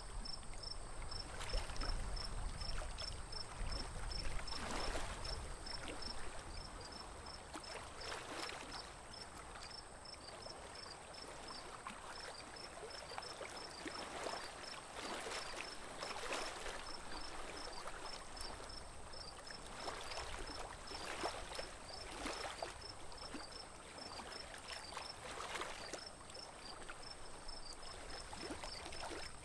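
Lake water swishing and splashing now and then around a small wooden boat. Under it an insect chirps steadily, high-pitched at about four chirps a second, with a faint steady high whine.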